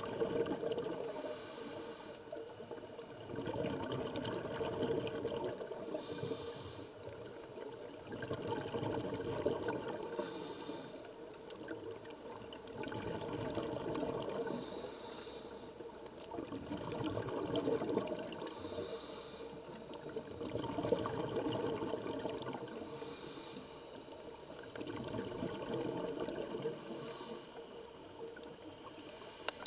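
Scuba diver breathing through a regulator underwater: a short hiss on each breath in, then a longer bubbling rush as the exhaled air escapes. The cycle repeats about every four to five seconds.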